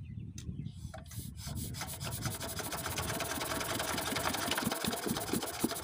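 Small single-cylinder diesel pump engine being hand-cranked to start, spinning up over the first second or so into a fast, even, rasping rhythm. The engine is hard to start.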